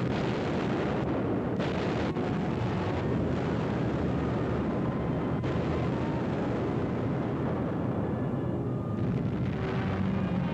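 Dense, continuous rumble of an aerial bombing, with bomb blasts running together. A droning aircraft engine comes through from about nine seconds in.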